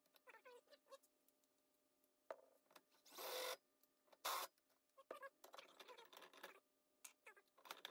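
Mostly quiet, with scattered faint handling noises of hands and tools: light clicks and rustles, a brief scrape about three seconds in and a sharp knock a little after four seconds.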